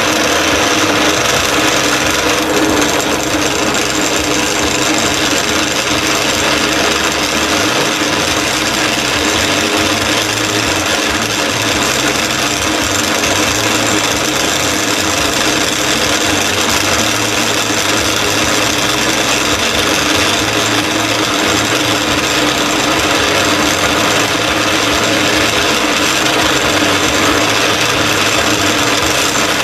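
Bench drill press running at speed with an old chisel held against a spinning aluminium slug, scraping a chamfer onto its edge: a continuous rasping cut over a steady motor tone.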